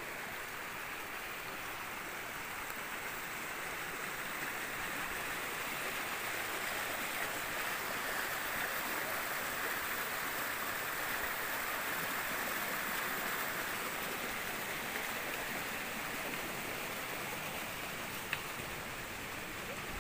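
Steady rush of flowing water, swelling a little in the middle, with a single sharp tick near the end.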